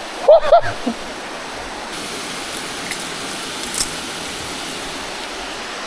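Steady rush of fast-flowing river water. A short voiced exclamation comes just after the start, and a couple of faint clicks follow later.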